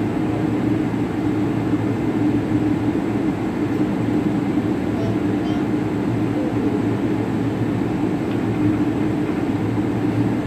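Airliner cabin noise heard from a window seat: the steady drone of jet engines and rushing airflow, with a constant low hum under it.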